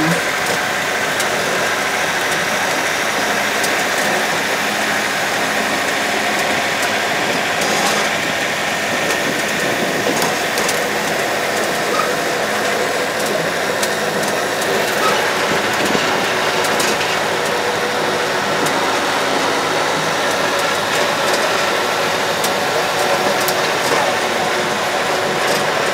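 Park flower train, a trackless road train, running steadily with a constant engine hum and travel noise, heard from on board.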